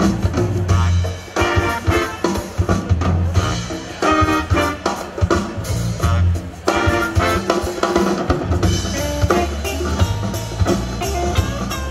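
Live band playing an instrumental: short, repeated riffs from trumpet, baritone saxophone and trombone over drum kit, hand percussion, bass and electric guitars.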